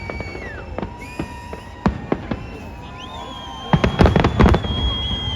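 Fireworks exploding: a few separate bangs about two seconds in, then a rapid cluster of loud bangs a little under four seconds in, the loudest part.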